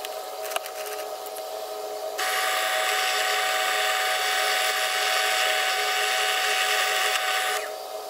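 Bench drill press motor running with a steady hum. About two seconds in, its small twist bit starts cutting into the housing of a DENSO 263500-5070 electric motor, a loud harsh drilling noise that stops about five seconds later, leaving the press running on.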